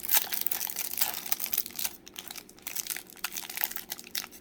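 Clear plastic trading-card pack wrapper crinkling as it is handled and opened. The crackling is dense for about the first two seconds, then thins out.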